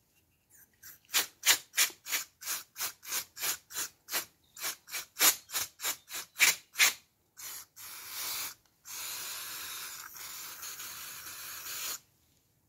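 Brisk scrubbing strokes on wiper motor parts, about three a second. Then an aerosol can of brake cleaner sprays, first in a short burst and then as a steady hiss lasting about three seconds.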